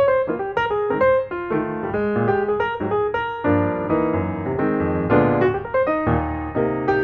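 Background piano music, a melody of quick notes changing several times a second.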